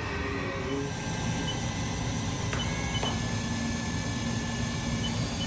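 Haas VF-3YT vertical machining center running with its spindle turning during a speed run-up test: a steady machine hum, with a couple of short clicks and a new steady tone coming in about three seconds in.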